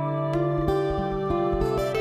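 Soft instrumental background music: a plucked string instrument playing a slow melody over held notes.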